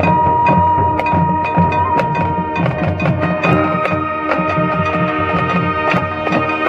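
Marching band playing: held chords from the winds and brass over a steady beat of drums, with sharp percussion strikes.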